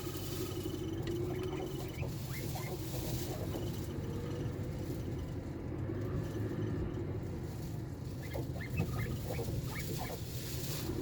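Mercedes-Benz E200 (W211) driving over speed bumps: a steady road and engine rumble, with bursts of short creaks and clicks from the driver's-side front suspension about two seconds in and again around eight to ten seconds. This creaking over bumps is the sign of a worn front shock absorber and strut top mount that have play.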